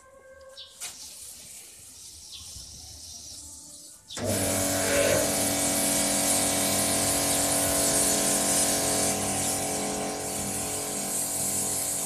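About four seconds in, a self-service car wash machine's high-pressure pump kicks in as the foam gun's trigger is pulled, and it runs on with a steady motor hum under the loud hiss of foam spraying from the gun.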